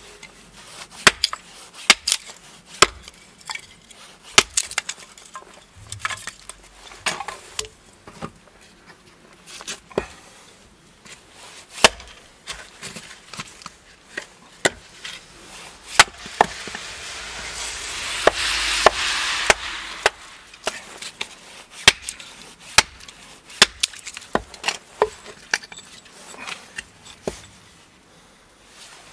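Hatchet chopping and splitting wood into kindling on a stump block: a run of sharp, irregular chops, about one or two a second. A hiss swells and fades about two-thirds of the way through.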